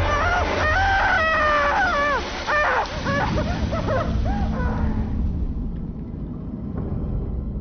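Horror-trailer sound design over the end title: a run of warbling, pitch-sliding shrieks over a low rumble, the shrieks ending about four and a half seconds in and the rumble then fading away.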